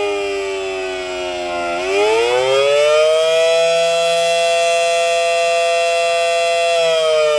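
Federal Signal Model 7AT outdoor warning siren sounding a two-note chord in a slow wail. It winds down in pitch, climbs back up about two seconds in, holds steady, and begins to fall again near the end.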